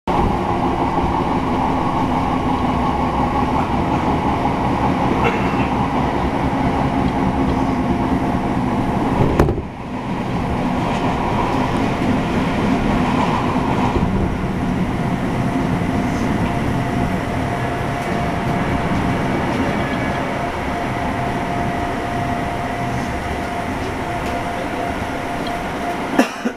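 Train running, heard from inside the carriage: a steady rumble of wheels and motors on the rails. There is a brief jolt about nine and a half seconds in, and a steady whine comes up in the second half.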